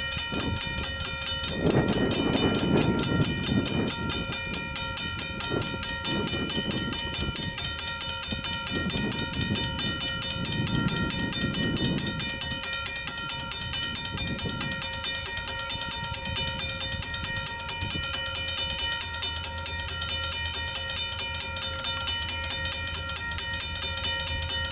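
Level crossing warning bell ringing steadily, several rapid strikes a second, while the crossing lights flash to warn of an approaching train. A low rumble swells and fades a few times in the first half.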